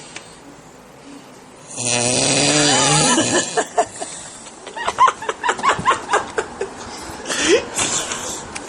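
A man snoring: one long, loud snore with a buzzing, motor-like tone about two seconds in, followed by several seconds of stifled laughter.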